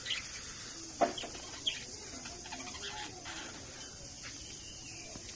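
Pet budgerigars making short, scattered chirps and chattering calls, with a sharp, louder sound about a second in, over a steady hiss.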